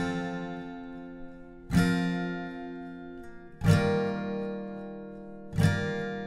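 Background music: an acoustic guitar strumming slow chords, a new strum about every two seconds, each chord left to ring and fade.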